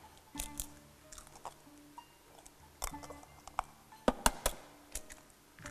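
Eggs being tapped and cracked open: a few sharp separate taps and cracks of eggshell, the loudest pair about four seconds in.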